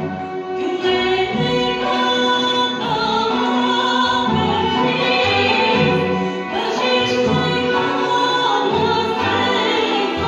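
A woman sings a folk song into a microphone over a live folk ensemble of kanons and bowed strings; the music plays without a break.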